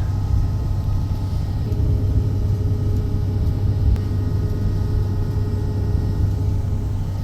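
Electric train running along the track, a steady low rumble, with a thin steady whine that comes in about two seconds in.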